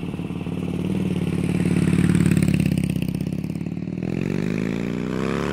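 Motorcycle engine running with a steady pulsing beat, then revving up, its pitch rising over the last second or so.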